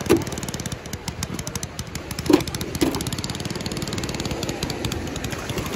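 A small engine running steadily with a rapid, even beat. A few short pitched calls sound over it, the loudest about two seconds in.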